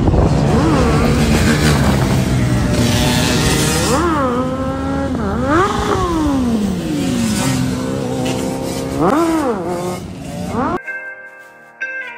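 Motorcycle engine revving hard, its pitch climbing and dropping again and again. Near the end it gives way to music.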